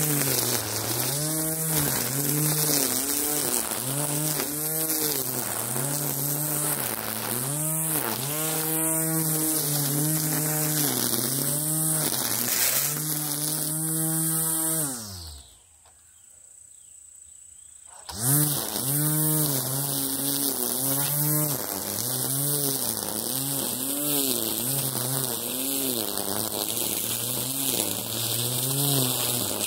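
String trimmer (weed eater) running, its buzzing pitch rising and falling every second or so. About halfway through it winds down and stops for a few seconds, then starts again suddenly at full speed.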